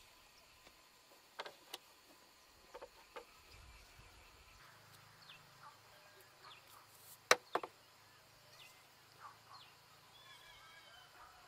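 Bamboo stakes knocking and clacking as they are handled and pushed into the ground, a few sharp knocks with the loudest about seven seconds in, over faint birds chirping and insects buzzing.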